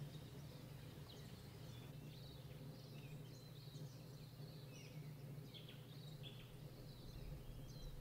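Quiet ambient sound: a steady low hum with faint, scattered bird chirps.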